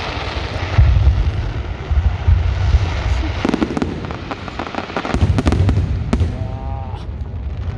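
Fireworks going off: deep booming explosions rumbling for the first few seconds, then a run of rapid, sharp crackling bangs.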